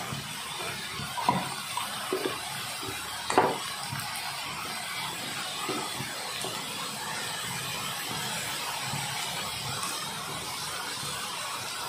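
Gram-flour-coated potato fries sizzling steadily in hot refined oil in a black kadai. A few short knocks of the spoon against the pan in the first four seconds, the loudest about three and a half seconds in, as more pieces go into the oil.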